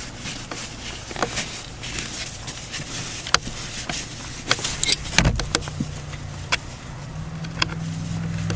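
Scattered clicks and knocks of a hand tool working out the last screw holding a blower motor under a dashboard. About five seconds in, a steady low hum comes in and grows louder.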